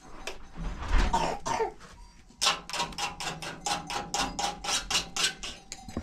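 Quick, rhythmic strokes of a paintbrush on a door, about four or five a second. They come after a single louder knock or scrape about a second in.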